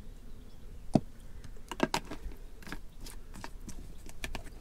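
Light clicks and taps of a plastic soap bottle and pump tube against a glass dispenser as liquid hand soap is poured in: one sharper click about a second in, then a scatter of smaller ones.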